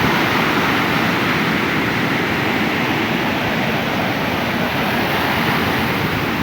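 Ocean surf washing onto a beach: a steady, continuous rushing noise.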